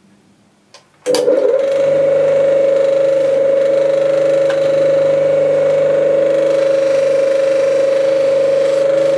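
Bench grinder with a green wheel running at speed: a loud, steady whine-hum that starts suddenly about a second in.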